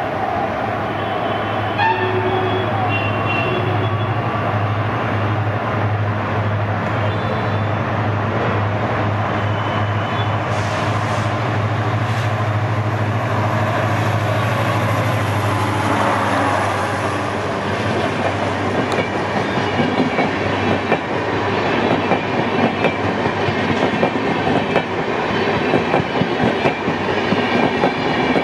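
EMD WDP4B diesel-electric locomotive, with its 16-cylinder two-stroke EMD 710 engine, passing at speed under load, with a steady low engine drone. From about 18 seconds in, the drone gives way to the rapid clickety-clack of the coaches' wheels over rail joints as the train rushes past.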